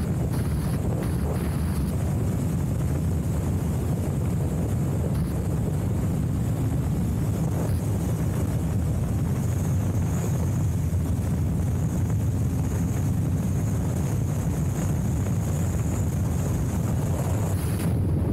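Motorcycle ridden steadily along a gravel road: a constant engine drone mixed with wind rush on the microphone.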